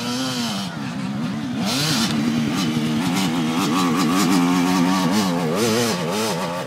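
Dirt bike engine revving hard as it climbs a steep hill, its pitch rising and falling over and over as the rider works the throttle. It is loudest in the middle and fades a little near the end.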